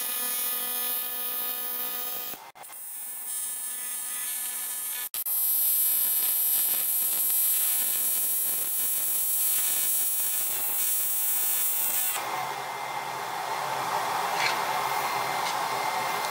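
TIG welding arc on cast aluminum, an AC arc buzzing steadily with a high hiss, breaking off briefly twice early on. About twelve seconds in, it gives way to a steady rushing noise with a thin whistle.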